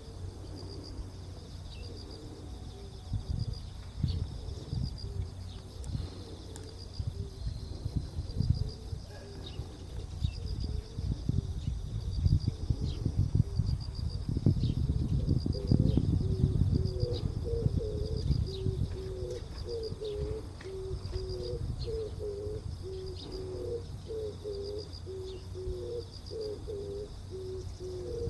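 Oriental turtle dove cooing its low, repeated phrase, becoming steady about halfway through, over a continuous pulsing chorus of crickets. A low rumble swells and fades in the middle.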